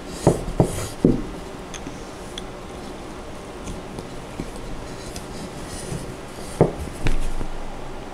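Light knocks of a wooden dowel and a wooden side panel being handled and fitted together on a table: three close together in the first second, then quiet, then two more about six and a half seconds in.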